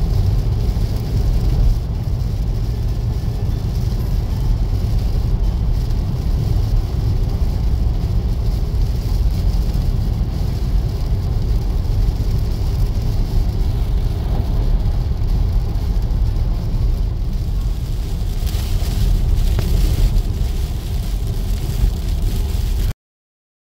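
Steady low rumble of a car driving, heard from inside the cabin, with a fainter hiss of road and air noise above it. It cuts off suddenly near the end.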